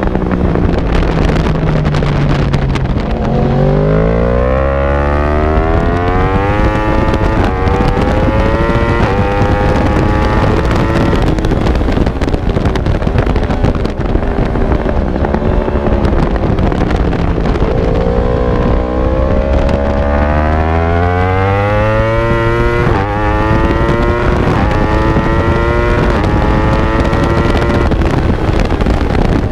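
Racing motorcycle engine accelerating hard through the gears twice, its pitch climbing and dropping back at each of several upshifts, with a slower fall in pitch between the two runs as it comes off the throttle. Heavy wind rush on the onboard microphone.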